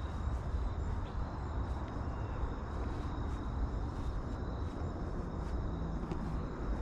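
Outdoor ambience: a steady low rumble, like wind on the microphone or distant traffic, with faint high ticks several times a second and a thin steady high whine.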